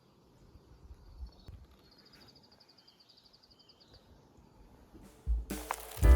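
Quiet outdoor ambience with a high, rapid chirping trill for about two seconds and faint low thumps. Music starts abruptly near the end.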